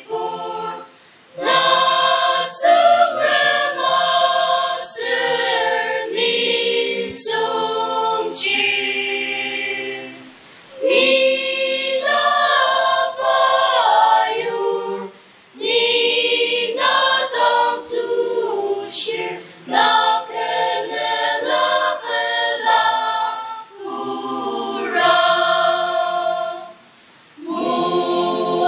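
Mixed choir of young men and women singing a hymn unaccompanied, in long phrases with short breaks for breath between them.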